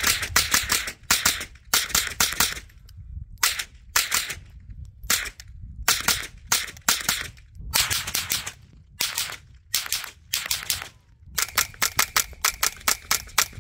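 Tippmann M4-22 .22 LR semi-automatic rifle firing in quick strings of sharp cracks with short pauses between strings, ending in a long fast string near the end.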